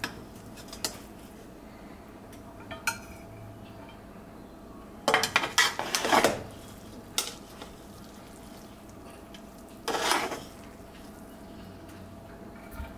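A metal utensil clinking and scraping against cookware: a few separate clinks in the first three seconds, a longer run of scraping and clatter around the middle, and one more short burst near the end. A faint steady hum runs underneath.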